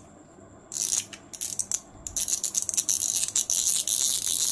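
Front drag knob of an Okuma Cedros CJ-45S spinning reel clicking rapidly as it is unscrewed to take off the spool. The clicking starts just under a second in, pauses briefly, then runs fast and nearly unbroken.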